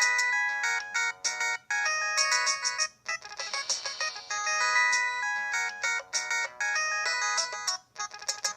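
An LG VX3450 cell phone playing one of its built-in default ringtones through its speaker: a synthesized melody of quick notes, several sounding together. There is a short break near the end before the tune starts again.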